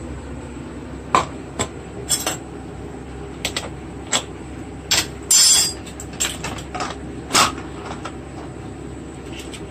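Pressure cooker lid being worked open: a string of separate metal clinks and knocks, with a short scraping rattle about halfway through.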